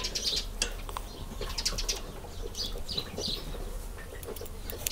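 Birds chirping in the background, with a few faint light clicks of a feeler gauge blade being worked into the exhaust valve rocker gap.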